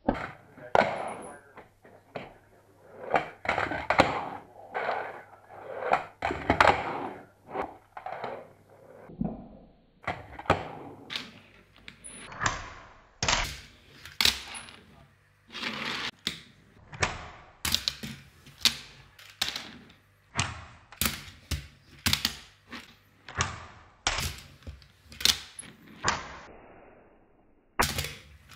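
A handboard worked by hand on a wooden laminate floor and a wooden block: a run of sharp clacks and knocks as the deck and wheels land and slap down, about one or two a second, with scraping and rolling in between.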